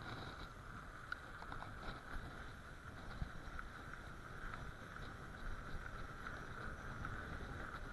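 Bicycle tyres rolling over packed, rutted snow and ice: a steady low rumble with small clicks and knocks now and then.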